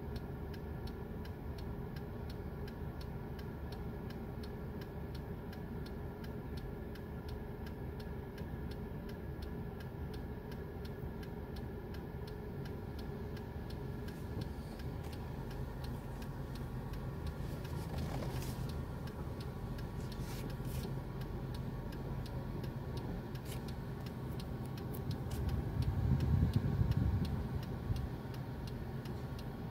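Car engine idling, heard from inside the cabin, with a steady, evenly spaced ticking over it. Near the end the low rumble swells for a couple of seconds, then settles again.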